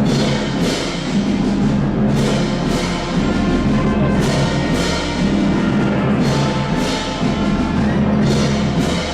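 Ensemble music: sustained low notes under repeated drum strikes, a little over one a second.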